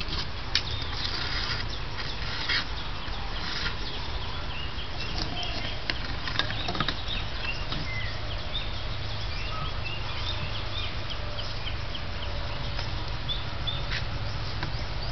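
Hands scraping and tapping wet clay and vermiculite grit while sealing the lid of a charcoal kiln, a few sharp clicks in the first seven seconds. Many short bird chirps come in from about five seconds in.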